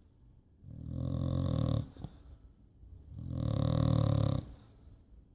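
Bulldog snoring in its sleep: two long snores, each over a second long, about two and a half seconds apart, with quiet breathing between.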